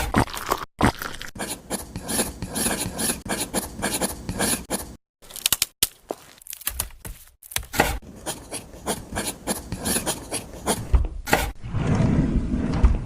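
Scraping and rubbing of small materials by hand, mixed with sharp clicks and taps, chopped into short pieces that stop abruptly. Near the end a steadier rasping hiss runs for about two seconds.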